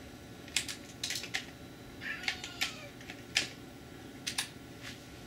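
Commodore 128 keyboard keys struck one at a time, about a dozen irregular clicks, as the shifted number keys are tested and register. The computer's faint steady AC whine runs underneath.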